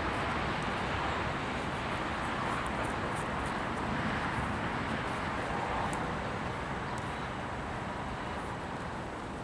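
Steady outdoor background rush with a few faint ticks, fading slightly toward the end.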